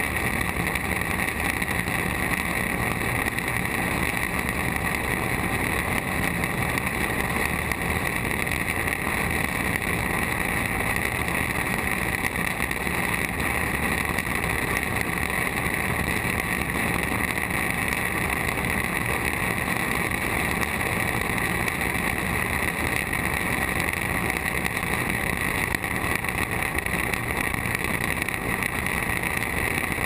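Claas Mercator combine harvester running, a steady, unbroken mechanical drone with a constant whine.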